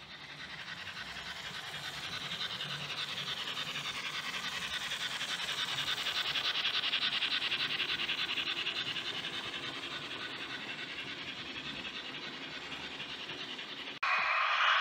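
Märklin H0 model steam locomotive running along three-rail track with a fast, even mechanical running noise that swells as it passes and eases off again. About a second before the end a sudden, louder whirring noise sets in.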